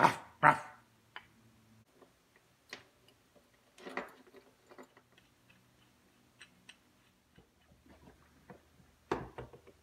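Scattered small clicks and knocks of a wooden hand-screw clamp's steel spindles and hardware being handled and fitted, with a quick cluster of louder knocks near the end. A short loud burst comes about half a second in.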